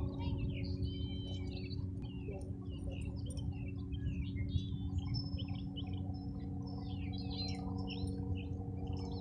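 Several small birds chirping and twittering in quick, overlapping calls, over a steady low hum.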